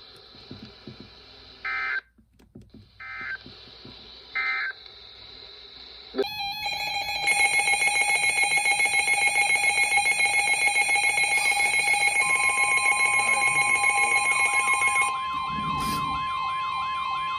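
Emergency Alert System tones. First come three short digital data bursts about a second apart, the end-of-message code that closes a weather warning. About six seconds in, a loud, rapidly pulsing electronic alert tone starts and runs for about nine seconds. It then gives way to a warbling, siren-like tone with a steady beep over it.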